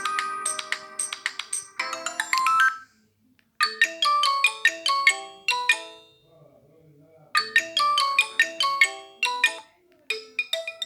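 Alcatel OT-3026X mobile phone ringtones: electronic melodies of short, quickly fading notes played in phrases, with brief breaks about three, six and ten seconds in.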